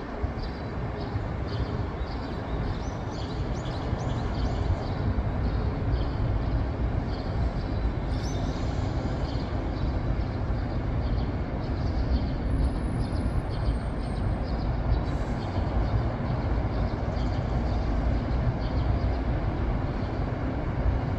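Steady city traffic from a busy multi-lane road below: buses and cars passing in a continuous wash with a constant low rumble.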